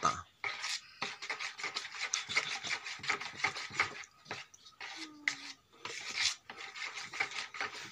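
Metal spoon stirring batter in a plastic bowl, scraping the bottom and sides in quick, irregular strokes.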